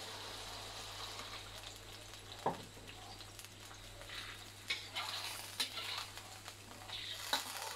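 Beef in soy sauce sizzling in a wok as a cup of water is poured in, then a metal spatula stirring and scraping the pan with scattered short clicks.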